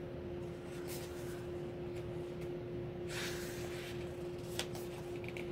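A page of a glossy album photobook turned by hand: one papery rustle about three seconds in, with a few light taps of fingers on the paper. A steady low hum runs underneath.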